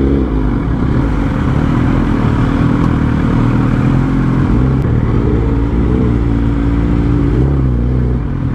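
Suzuki GSX-R1000 inline-four engine running at low revs as the bike rolls slowly, with a few brief rises and falls in pitch from light throttle, around five and seven seconds in.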